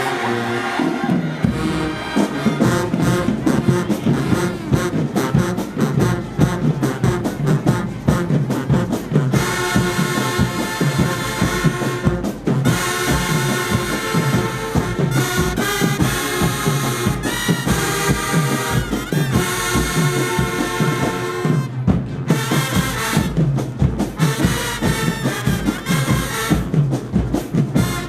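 Marching band playing: a drumline hits steadily throughout, and the brass horns come in full about ten seconds in, with a couple of brief breaks.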